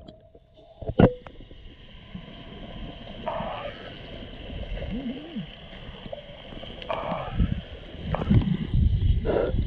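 Muffled underwater sound picked up through an action camera's waterproof housing: low water rumble and gurgling, with a sharp knock about a second in and a few short muffled bursts, the rumble growing near the end.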